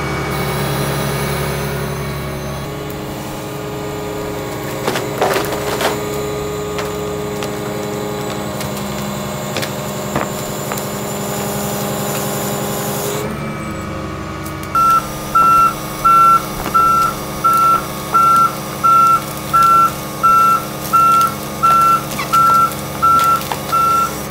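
Volvo excavator's diesel engine and hydraulics running steadily, heard from inside the cab, with a few sharp snaps of wood as the bucket pushes over a tree. About two-thirds of the way in, the machine's travel alarm starts a steady beeping, about three beeps every two seconds, as the excavator moves on its tracks.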